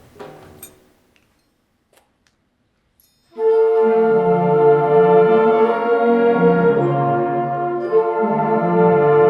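High school band: a soft passage dies away into a couple of seconds of near silence, then the full band comes in loudly about three and a half seconds in, the brass holding a chord over moving low notes.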